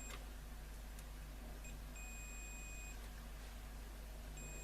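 Multimeter continuity beeper sounding as the probes make and break contact: a short blip, then a steady beep about a second long, and another starting near the end, signalling a continuous connection to ground.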